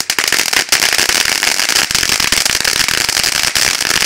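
Crackling Power Category 1 firework fountain burning: a dense, rapid crackle of many small pops over a steady hiss of sparks.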